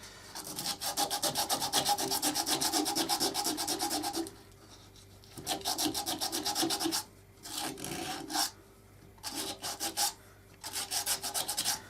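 Sandpaper rubbing against a wooden cup spinning on a wood lathe, smoothing rough spots on the inside. It comes in five passes: one long pass of about four seconds, then four shorter ones with brief breaks. The lathe's steady motor hum carries on between the passes.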